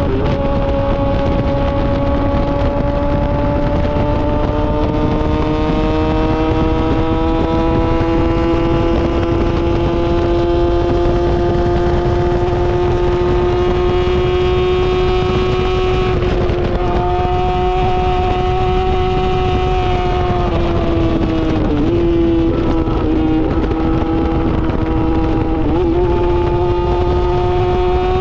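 Yamaha R6 inline-four sport bike running through an SC-Project titanium exhaust, holding high revs with the pitch slowly climbing for most of the first half. In the second half the note steps and dips a few times, like gear changes.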